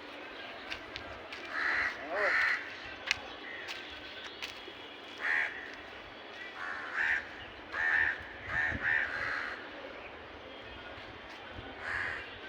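Crows cawing: about ten short caws scattered through, several in quick succession near the middle. A single sharp click about three seconds in.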